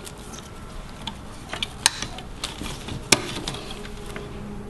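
Irregular small clicks and rattles of insulated crimp spade connectors and wires being handled and pushed onto a charger board's relay terminals, over a faint steady low hum.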